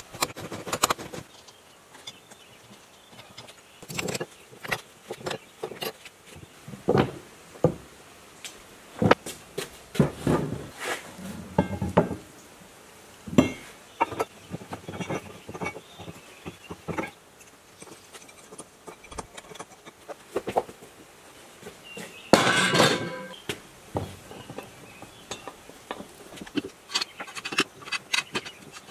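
Metal tractor parts clinking and knocking as they are handled and fitted together by hand. It is a scattered series of separate clicks and knocks, with one louder clatter lasting about a second a little past two-thirds of the way through.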